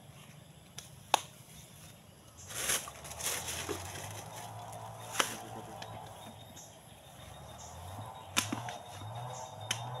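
A handful of sharp snaps a few seconds apart and a burst of rustling about two and a half seconds in, from leaves and twigs being handled in thick undergrowth, with faint short high chirps in the background.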